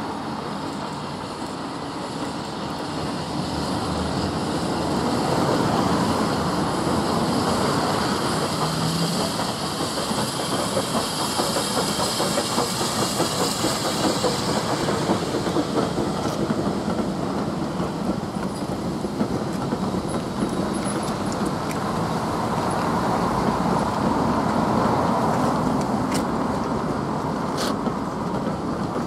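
Steam locomotive and its train of coaches running past close by: first the engine, then the coaches rolling through with a steady rumble and the clickety-clack of wheels over the rail joints, with a few sharp clicks near the end.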